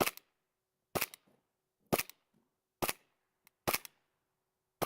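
Airsoft pistol (softgun) fired repeatedly at a target, six sharp shots about a second apart.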